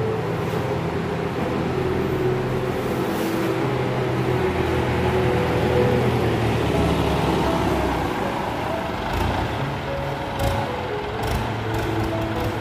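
Engines of loading machinery running steadily, a forklift and hydra mobile crane at work, under background music. A few sharp clicks come near the end.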